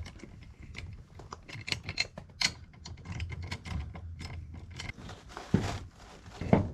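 Irregular metallic clicks and clinks of a wheel being fitted back onto the hub, with lug nuts and tools handled, and two louder knocks near the end.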